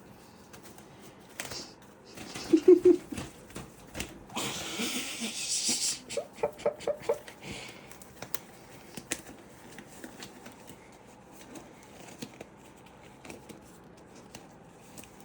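Handling noises of a disposable glove being pulled off and worked onto a hand: scattered clicks and rustling, a crinkly hiss for a couple of seconds, and a few short squeaks, the loudest about three seconds in.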